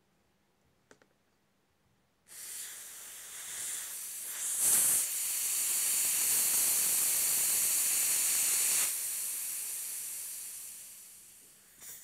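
Ralston quick-test hose connection self-venting as it is unthreaded under pressure: trapped test pressure hissing out. The hiss starts suddenly about two seconds in, grows louder briefly, holds steady, then tapers off near the end.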